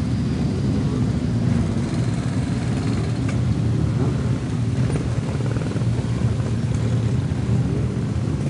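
Several motorcycle engines running together in a steady low rumble.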